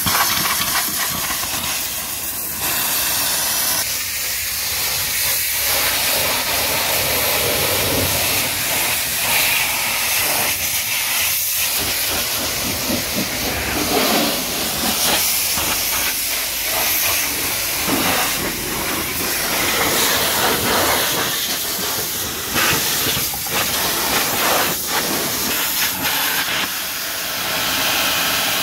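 Pressure-washer jet spraying water onto a car's bodywork and wheel: a loud, steady hiss of spray that rises and falls in strength.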